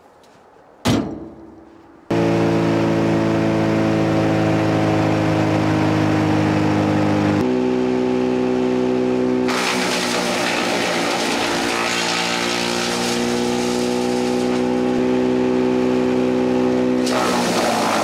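A single sharp clang as the chipper's steel infeed tray drops open. About two seconds in, the skid-steer-powered hydraulic brush chipper and the Bobcat T750's engine start running at full speed, a loud steady hum with several steady tones. Partway through the tones change and a rougher rushing noise joins as branches are fed through and chips blow out of the chute.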